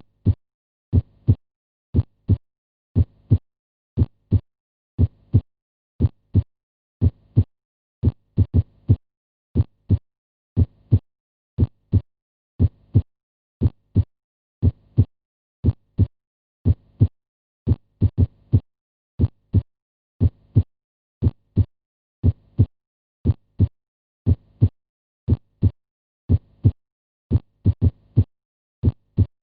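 Heart sounds heard through a stethoscope: paired lub-dub beats about once a second, short sharp sounds with near silence between beats. A few beats carry an extra third click.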